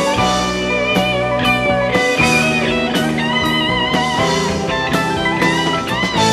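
Electric guitar solo on a Stratocaster-style guitar, sustained notes bent and shaken with vibrato, over the band's drums and bass keeping a steady beat.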